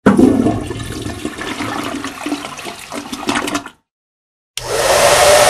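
A restroom urinal flushing: a sudden rush of water that churns for about three and a half seconds and cuts off. After a brief silence, a louder steady rushing noise with a steady hum starts near the end.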